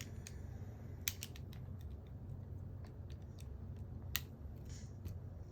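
Scattered sharp clicks and taps, about eight of them, irregularly spaced, over a steady low hum. The loudest click comes about a second in, and another about four seconds in.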